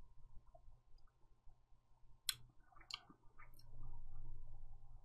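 Faint sounds of a man drinking carbonated cola from a can and tasting it, with a few sharp mouth clicks and lip smacks about halfway through.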